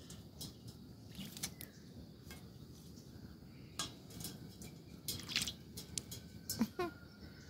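Faint splashing and dripping water with scattered light clicks and taps as a pet parrot plays and bathes in it. A short sound glides downward near the end.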